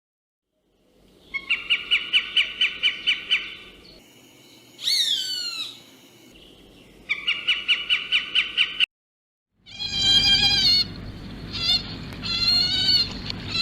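Animal calls: two runs of rapid pulsed high calls, about five a second, with a quick falling squeal between them, then a longer wavering cry near the end.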